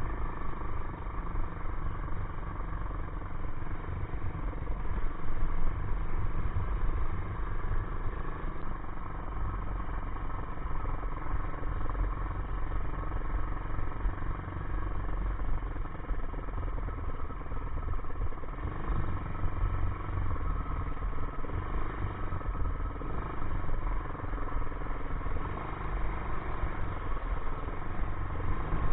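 ATV engine running steadily while being ridden, its throttle rising and falling a little.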